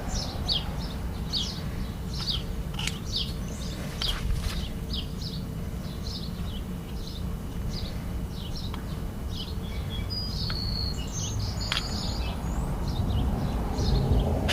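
A bird chirping over and over, short falling chirps about two or three a second, over a steady low rumble of outdoor background noise. A few light clicks come through as well.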